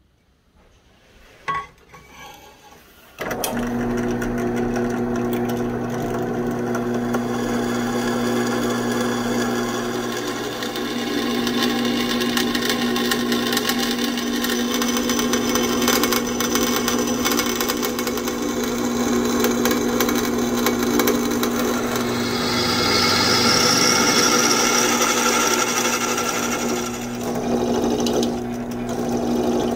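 Drill press motor starting about three seconds in and running steadily while its bit drills and countersinks holes in the leaf-spring steel blade. A rising high squeal from the cut comes in for a few seconds in the latter half.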